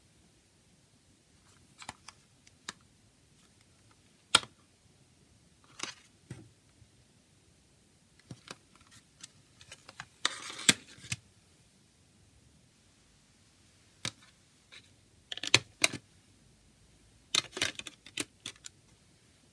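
A plastic CD jewel case handled by hand: scattered sharp clicks and taps of hard plastic, bunched into short clattering runs about ten seconds in and again near the end.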